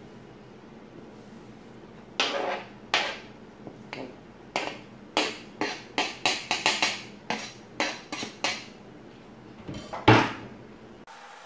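A utensil scraping and tapping chopped spinach off a plastic cutting board into a metal pan: a run of quick clicks and knocks, with one louder knock about ten seconds in.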